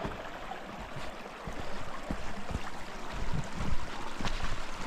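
Hiking boots crunching step by step through snow, the steps quickening and getting louder in the second half, over a steady rushing noise.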